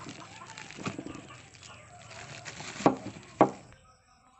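Clear plastic wrap around a metal deodorant spray can crinkling as it is handled, then two sharp knocks about half a second apart near the three-second mark as the spray cans are set down on a wooden board.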